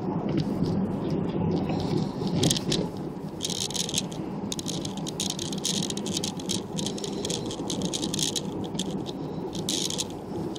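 Vehicle cabin noise while driving: a steady road and engine rumble under irregular rattling and clicking, which comes thickest from about three seconds in.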